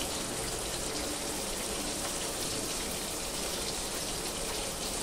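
Malai chicken kebabs deep-frying in hot oil, the oil sizzling and bubbling steadily.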